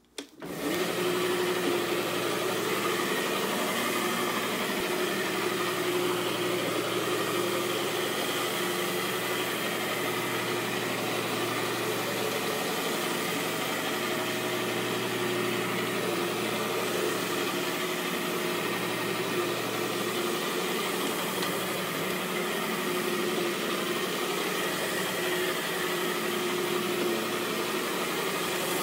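PowrFlite Multiwash counter-rotating brush carpet scrubber switching on about half a second in, then running with a steady motor hum as its brushes scrub the carpet during low-moisture encapsulation cleaning.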